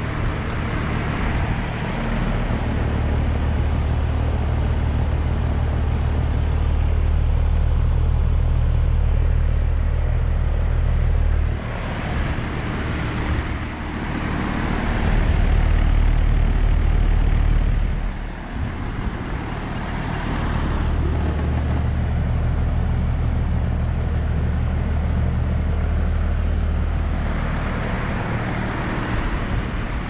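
A 3-ton ICP R4A4 air-conditioner condenser running: the compressor's steady low hum under the whoosh of the condenser fan. It grows louder for a few seconds midway.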